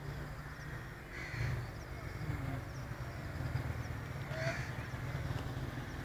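A bird calling twice, about three seconds apart, over a steady low rumble.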